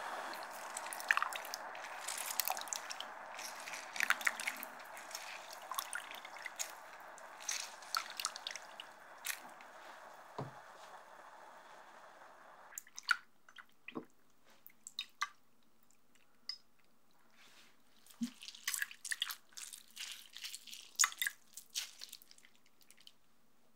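Close-up kitchen sounds of juice and water: drips and small wet clicks as a lemon is squeezed, over a steady hiss from the gas burner heating a pot of water. The hiss cuts off suddenly about halfway through, leaving soft splashes and crinkles as gelatin sheets are put into a bowl of water.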